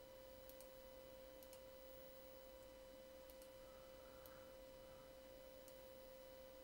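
Near silence: room tone with a faint steady tone and a few very faint ticks.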